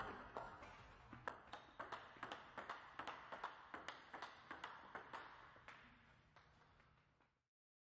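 Faint table tennis rally: the ball clicking off the rackets and the table several times a second. It fades away and cuts to silence near the end.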